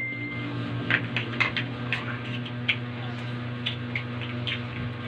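Small plastic toy building blocks clicking and tapping as they are handled, in light, irregular clicks over a steady low hum.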